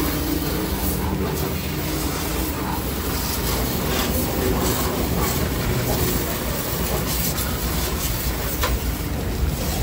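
High-pressure washer running steadily, its jet spraying water against a car's underbody and wheel arch, over a low hum with scattered light clicks.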